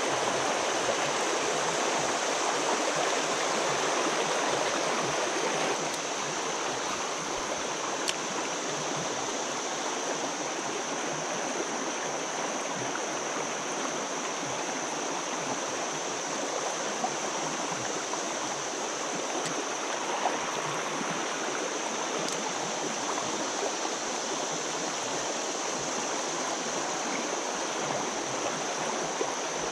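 River water rushing over a shallow rocky riffle: a steady, even rush that drops a little in loudness about six seconds in.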